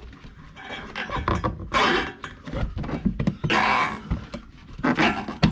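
Plastic inner guard (wheel-arch liner) rubbing and scraping as it is pulled back by hand, in several irregular bursts, with a sharp knock near the end.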